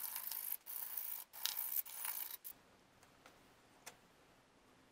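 A steady hiss broken off abruptly several times, ending about two and a half seconds in, followed by a few faint clicks.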